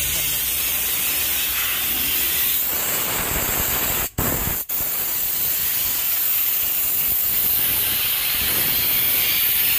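Handheld steam gun jetting steam in a steady, loud hiss during interior car cleaning. It cuts out twice very briefly, about four seconds in.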